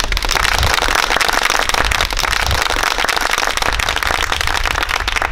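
A crowd applauding: loud, dense clapping that starts suddenly.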